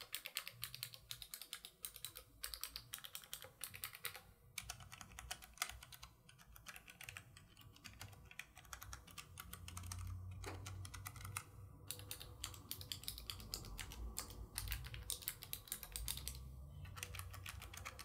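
Typing on a Vissles LP85 low-profile keyboard with clicky optical switches: a fast, steady run of keystroke clicks. After a short break about ten seconds in, the typing moves to a Keychron K3 with low-profile brown switches.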